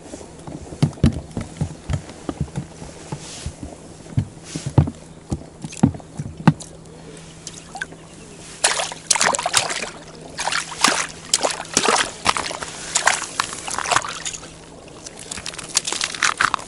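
Close handling noise from an ice angler landing a fish: a run of sharp knocks and scrapes, then from about halfway on loud, repeated rustling of a synthetic winter jacket right at the microphone as he hauls the line in and reaches down to the ice hole.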